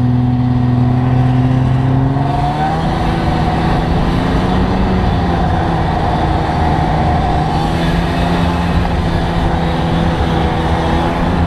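Snowmobile engine running steadily while towing a loaded passenger sled, its pitch rising about two seconds in and climbing again near the end, over a constant rushing noise from the ride over snow. The engine is working hard under the load.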